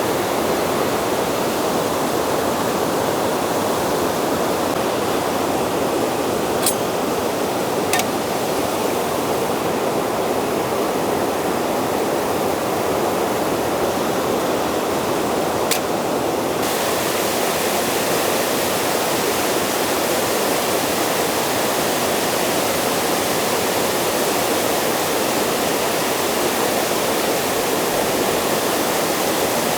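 Steady rushing noise, with a few brief clicks in the first half.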